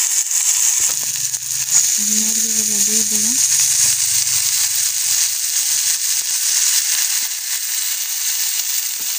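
Spiced onion-and-tomato masala frying in hot oil in a steel wok, a steady sizzle, as raw chicken pieces are added to it.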